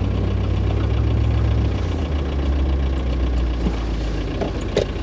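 A vehicle engine idling low and steady after a tow pull. Its note drops slightly about two seconds in as the revs settle.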